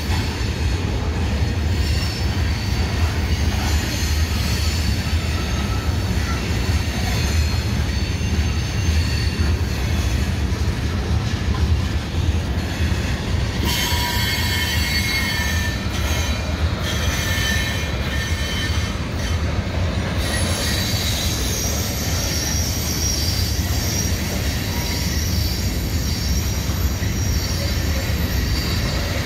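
Freight train cars rolling past: a steady low rumble of steel wheels on rail, with thin high-pitched wheel squeal coming and going over it.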